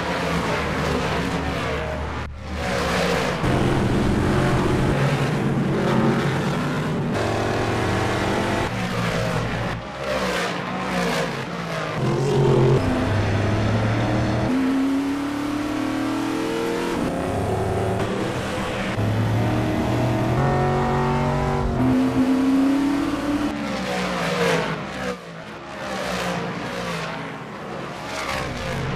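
Dirt-track race cars' engines running loud as the cars race past on the oval, their pitch rising under acceleration and dropping as they pass or lift off, with several abrupt changes as one pass gives way to the next.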